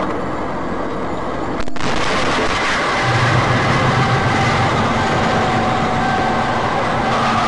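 Dense, steady vehicle noise with a sharp click about two seconds in, after which it gets louder.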